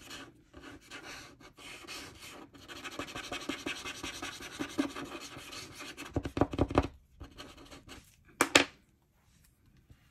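A fine-tip glue pen scratching across paper in many quick strokes as glue goes onto a small die-cut cardstock tree. The strokes stop about seven seconds in, and a few handling bumps on the paper follow, the sharpest one near the end.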